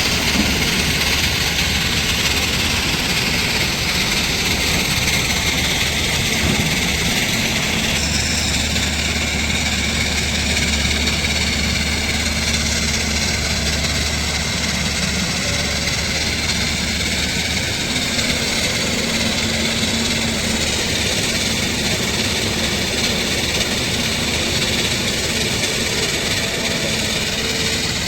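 Tata Hitachi 210 LC hydraulic excavator's diesel engine running steadily while the machine works, with a slight change in the low engine note about eight seconds in.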